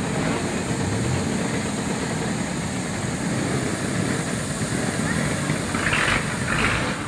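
Steam road roller running steadily, with people talking nearby and two short brighter sounds about six seconds in.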